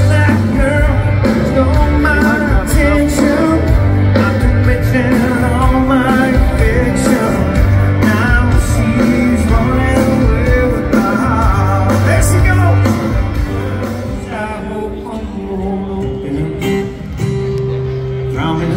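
Rock song with singing, guitar and a steady beat; it gets quieter about two-thirds of the way through.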